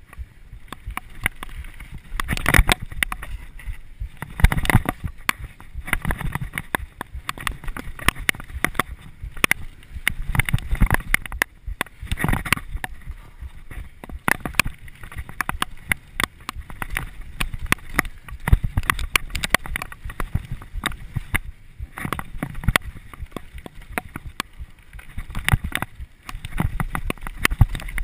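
Mountain bike riding fast down a dirt singletrack: tyres rolling over the rough ground, with frequent irregular knocks and rattles as the bike hits bumps, and wind rumbling on the microphone.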